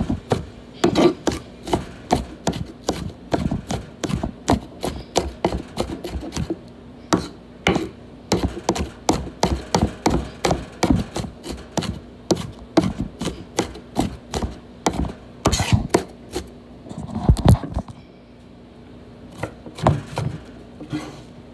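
Kitchen knife chopping onion on a wooden cutting board: a steady run of quick strokes, about three a second, that thins out to a few scattered strokes in the last few seconds.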